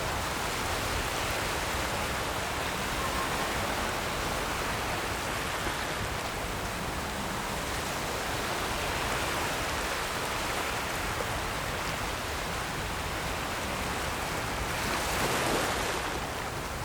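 Ocean surf: a steady rush of breaking waves, with one wave swelling louder near the end.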